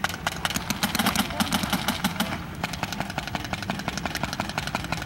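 Paintball markers firing rapid strings of shots, many a second, in a dense volley that thins out about halfway through.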